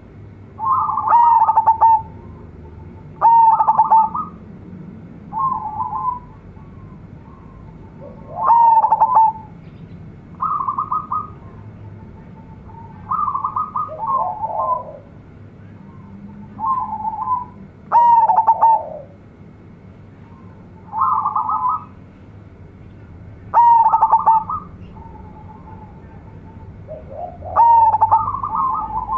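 Zebra dove (perkutut) singing its cooing song: short phrases of rapid, stuttering coo notes, repeated about every two to three seconds.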